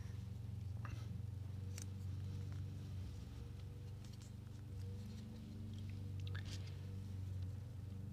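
Faint handling noises as resistors are taped in place on a clock-kit circuit board: a few light clicks and rustles over a steady low hum.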